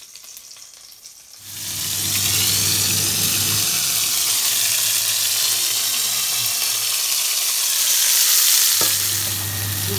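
Fish tagine sizzling as it starts cooking on the stove over medium heat: a steady hiss that sets in about a second and a half in, over a low hum, with a click shortly before the end.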